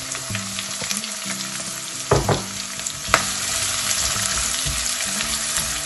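Chopped onion sizzling in hot oil and ghee in a kadhai as a spatula stirs it, with a steady hiss of frying. Two sharp knocks, about two and three seconds in.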